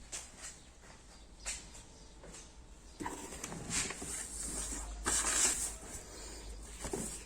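Faint handling noise: a few light clicks, then from about three seconds in a stretch of rustling and scraping that swells and fades several times.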